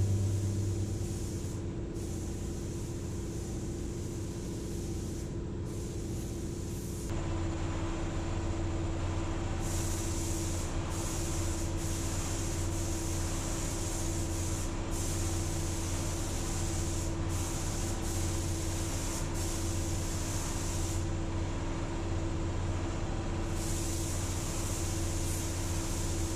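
Air spray gun hissing in stretches of a few seconds as the trigger is pulled and released while painting steel truck rims, over a steady mechanical hum that gets louder about seven seconds in.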